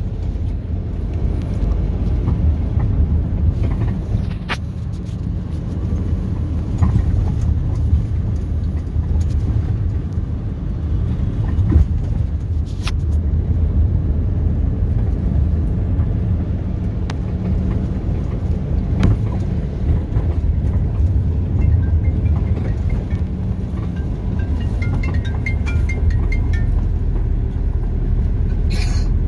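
Motor vehicle on the move: a steady low rumble of engine and road noise, with a few light knocks.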